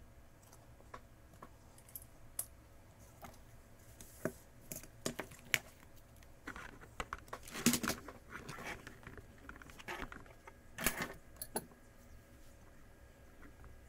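Small tools and tablet parts handled on a work surface: scattered light clicks and taps, with a denser clattering, scraping stretch a little past halfway and another about eleven seconds in.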